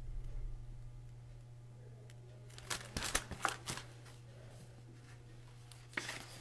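Pages of a hardcover picture book being turned by hand: a few short paper rustles and flicks about three seconds in, and a couple more near the end.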